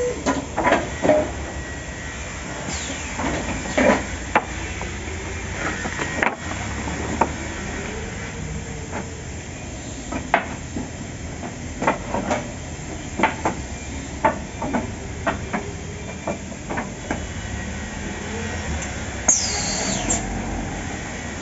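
Automatic stringer pallet nailing machine running: sharp, irregularly spaced nailing shots and clacks over a steady machine hum and hiss, with a brief high, falling squeal of air near the end.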